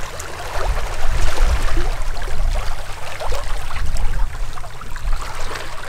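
Water rushing and splashing in the wake of a moving sailing yacht, over a steady low rumble.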